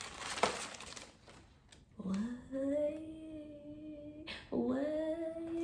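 A woman's voice sings two long held notes, the first starting about two seconds in and rising gently, the second a little higher near the end, like a fanfare for a reveal. Before them there are soft handling sounds.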